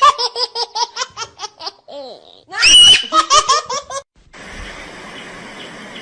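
High-pitched laughter in quick rhythmic bursts, about seven a second, with a shrill squeal between two runs. It gives way about four seconds in to a steady hiss.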